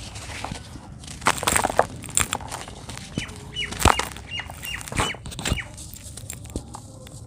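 Soft-textured dirt being crumbled by hand: scattered crackles and crunches. About three seconds in, a bird chirps a quick run of short notes.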